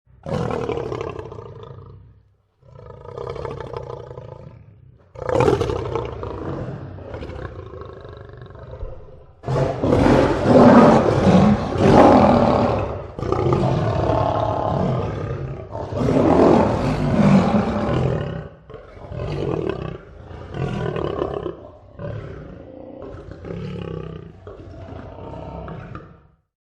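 Lion roaring: a bout of long roars that swell to their loudest about ten to eighteen seconds in, then trail off into a run of shorter, weaker grunts.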